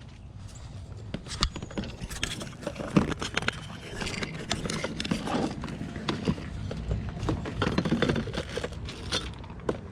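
Costume jewelry being sifted through in a box: necklaces and bangles clinking and jingling against each other in many small, irregular clicks.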